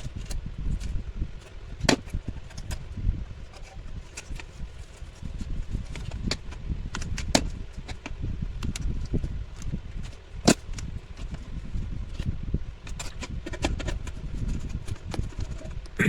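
Irregular clicks, clinks and knocks of parts and tools being handled while an electric cooking pot is worked on, over a low rumble. Two sharper knocks stand out, about two seconds in and about ten seconds in.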